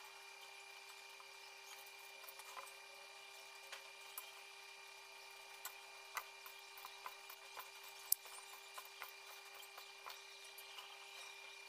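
Faint scattered clicks and small taps of hands handling decorations and a cake-decorating turntable, over a steady faint hum. One sharper click comes about eight seconds in.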